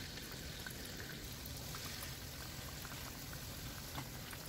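Battered potato wedges frying in hot oil in a frying pan: a soft, steady sizzle with scattered small pops and crackles.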